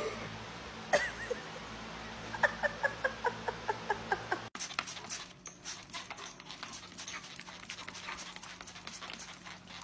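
A dog giving a quick run of short whining yelps, about three or four a second. About halfway through, the sound cuts to a string of sharp clicks and taps.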